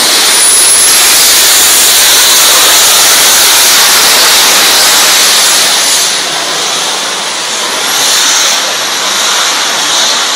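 Small jet turbine worn on a performer's back, running hard: a loud, steady rushing roar with a thin high whine that rises about half a second in and holds, easing slightly about six seconds in.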